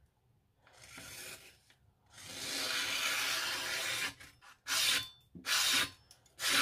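Freshly sharpened Chinese cleaver slicing through paper in a cut test: a dry scraping stroke about a second in, a longer one of about two seconds, then three quick short cuts near the end.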